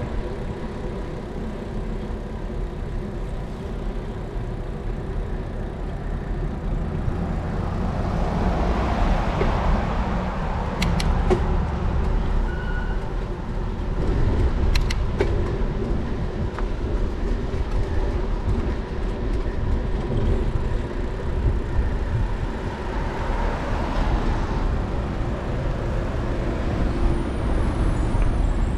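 Cycling heard through a GoPro's microphone: steady wind rumble and road noise, with passing motor vehicles swelling twice, once about a third of the way in and again toward the end. A few sharp ticks come in the middle.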